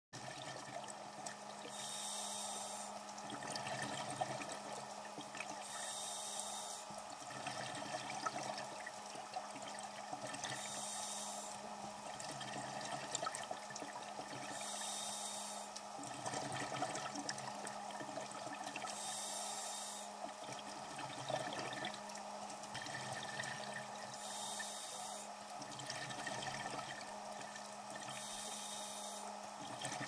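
Scuba diver breathing through a regulator underwater: hissing and bubbling breaths in a steady rhythm, about one every four seconds, over a faint low steady hum.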